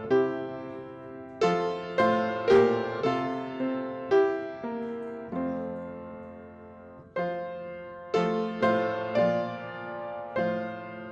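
Solo piano playing slowly, chords struck and left to fade, with one chord held longer about five seconds in.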